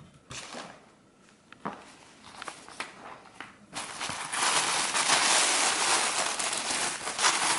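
Tissue paper being handled while a package is unwrapped: faint scattered rustles and light taps at first, then loud, continuous crinkling from about four seconds in as the paper is pulled open.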